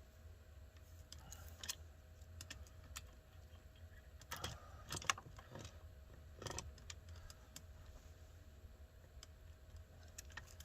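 Scattered light clicks and metallic clinks of chainsaw bar, chain and small parts being handled during assembly, loudest in a cluster about four to five seconds in and again at six and a half seconds, over a low steady hum.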